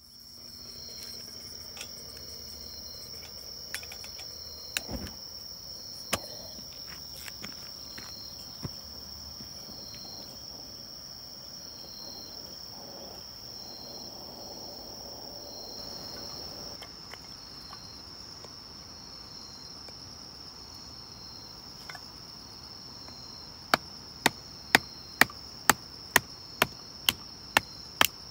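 Night insects, crickets among them, trilling steadily with a high continuous trill and a pulsing chirp, with a few scattered clicks and taps. About 24 seconds in, a regular run of sharp wooden knocks starts, about two a second: firewood being split into kindling.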